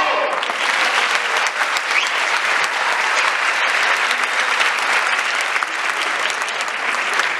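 Large theatre audience applauding: dense, steady clapping of many hands.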